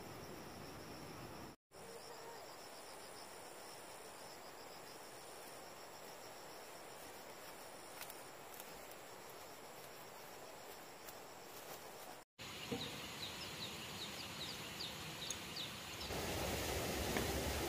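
Outdoor rural ambience with insects chirping: thin high trills, then after a brief gap a quick run of short repeated chirps.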